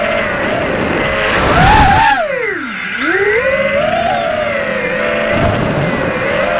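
Electric motors and propellers of an FPV racing quadcopter, heard from its onboard camera: a buzzing whine that rises and falls with the throttle. The whine drops steeply about two to three seconds in and then climbs back. Wind buffets the microphone now and then.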